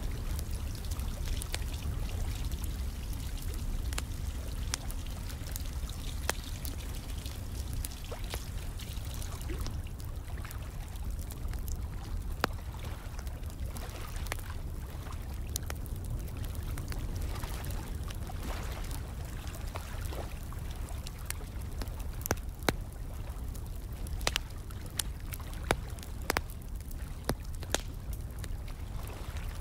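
Fire crackling with irregular sharp pops over a steady sound of running, pouring water with a low rumble. The pops come more often in the second half.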